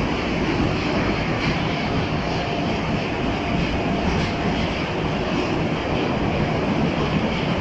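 New metro train running at speed through a tunnel, heard from inside the carriage: a steady, even rumble and rush of wheels and motors, with a faint whine for a couple of seconds in the middle.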